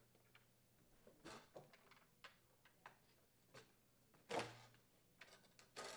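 Faint clicks and knocks of hard plastic as the side retaining tabs of a leaf blower's plastic air intake grid are pushed free with a deep well socket, with a louder knock about four seconds in and another near the end.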